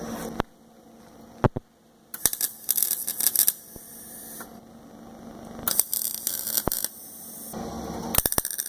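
Eastwood MIG 135 welder laying short tack welds, a dense crackling that comes in three bursts of about a second each with quieter pauses between, and a few single sharp clicks before them.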